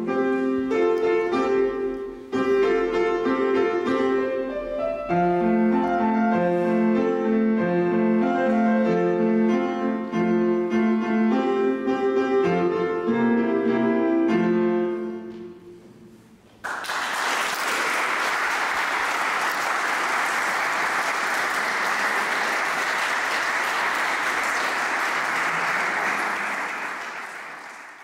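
Grand piano played solo, a classical-style piece in clear separate notes, which dies away about fifteen seconds in. Then an audience applauds, starting suddenly, for about ten seconds before it fades out.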